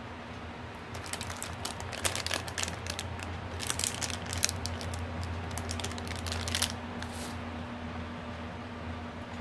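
Clear plastic bag holding a bead bracelet being handled: crinkling with quick small clicks, from about a second in until near the end, over a steady low hum.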